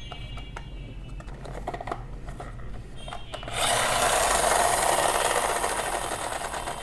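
Light clicks, then about three and a half seconds in a loud, rough rubbing or scraping noise lasting a couple of seconds and easing off, from something being rubbed or scraped.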